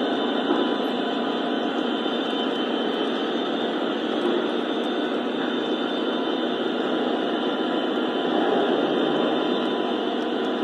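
Lionel O-scale freight cars (tank cars and flatcars) rolling along three-rail track: a steady, even noise of metal wheels running on steel rail.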